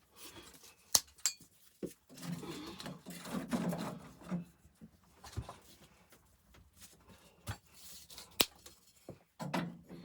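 Handling noises: a few sharp knocks and clicks with stretches of rustling and scraping between them.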